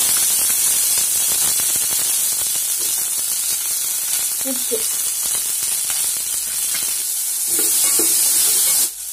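Garlic, ginger, green chillies and small onions sizzling steadily in hot oil in a pan, with a spoon stirring through them. The sizzle drops off suddenly near the end.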